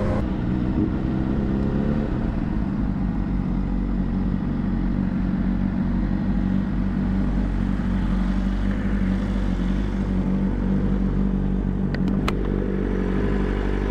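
Honda CBR600RR's inline-four engine running at a steady, unchanging speed. About twelve seconds in there are a couple of sharp clicks.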